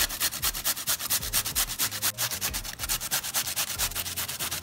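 Peeled English cucumber being grated on the finest side of a stainless steel box grater: quick, even rasping strokes in a steady run.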